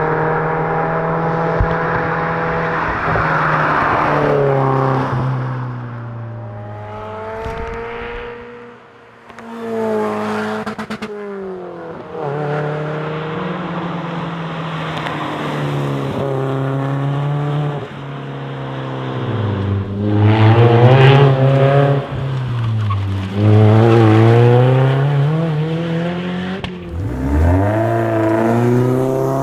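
Lotus Elise S four-cylinder engine driven hard, its note repeatedly climbing through the revs and dropping at each gear change. It falls off briefly about a third of the way in, then near the end swings down and back up again as the car slows for corners and accelerates out.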